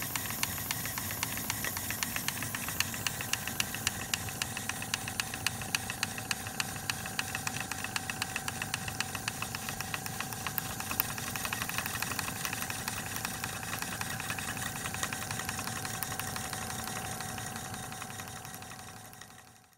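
Bassett-Lowke live-steam model Burrell traction engine running under steam: fast, even ticking from its cylinder and valve gear over a steady steam hiss, fading out near the end.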